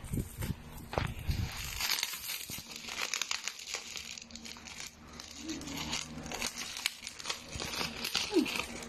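Plastic parcel wrapping crinkling and rustling as it is handled and cut open with scissors, with a busy run of crackles and snips from about two seconds in.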